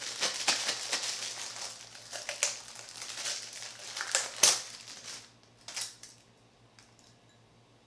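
Clear plastic bag crinkling and rustling as a glass cup is worked out of it, with one louder crackle about four and a half seconds in. The crinkling stops after about five seconds, leaving a few faint rustles.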